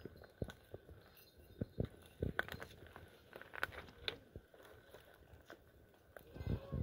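Irregular small knocks, clicks and crunches, about a dozen scattered over several seconds, with a heavier low thump near the end.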